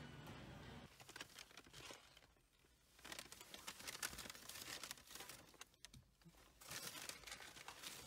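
Packaging being handled, crinkling and rustling in three bursts with short pauses between.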